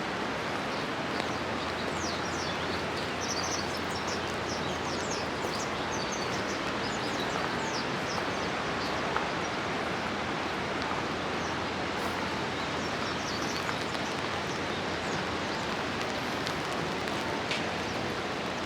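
Steady hiss of rain, with small birds chirping on and off, most busily in the first half.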